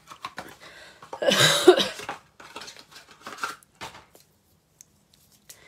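A person coughing once, about a second in, with a few faint taps and rustles around it.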